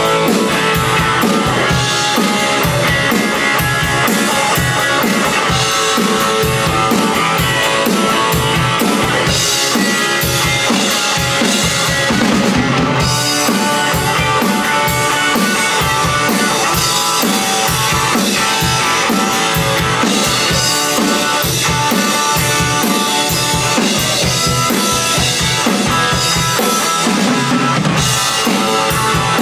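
Electric guitar played through a 1967 Supro Thunderbolt tube amp, with a drum kit keeping a steady rock beat.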